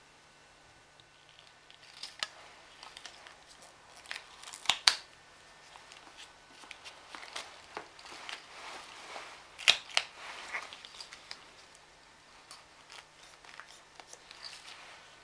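Adhesive medical tape being handled and cut with scissors: rustling and crinkling from the tape and gloved hands, scattered snips, and two loud sharp clicks about five seconds apart.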